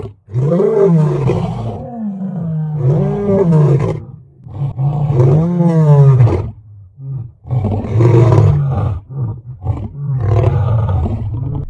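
Male lion roaring: a bout of long, deep calls that rise and fall in pitch, breaking into shorter grunting calls over the last few seconds.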